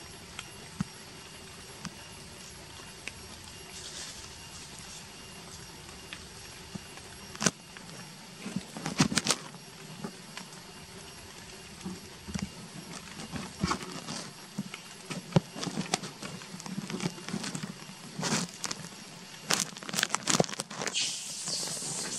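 Intermittent crackling and rustling, like dry leaf litter being disturbed: a scatter of short clicks and crinkles that grows busier after the first several seconds, over a faint steady background.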